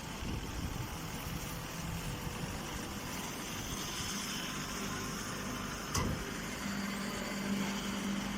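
A machine running steadily, with a single sharp knock about six seconds in and a low steady hum that grows stronger near the end.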